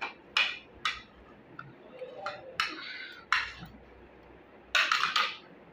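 Utensils scraping and clinking on a plate in a run of short strokes, the loudest cluster near the end.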